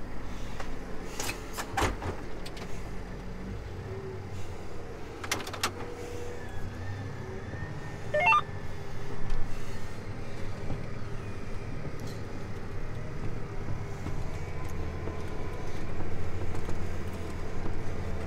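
John Deere tractor engine running steadily under load, heard from inside the cab, while it pulls a moldboard plow through the ground. A few sharp clicks come in the first six seconds, and the engine note changes about four seconds in.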